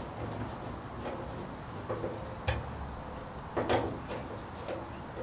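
A few sharp knocks and clicks of metal being handled as a grill chimney is screwed on with a Phillips screwdriver, the two loudest about two and a half and three and a half seconds in.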